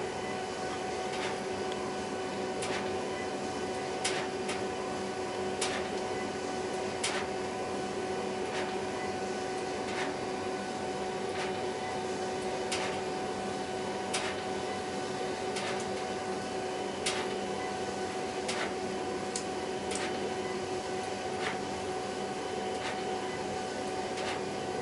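HP Designjet 5000ps large-format inkjet printer printing: a steady mechanical hum with a constant tone, and a sharp click about every one and a half seconds.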